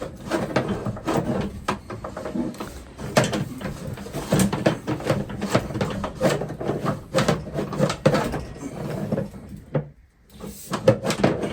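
Rapid, irregular knocking and clattering of a drain cable being pushed and worked through a sewer pipe, with a brief pause near the end.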